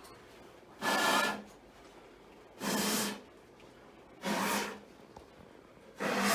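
Four short rasping strokes, evenly spaced a little under two seconds apart, from hand-tool work on metal intake parts.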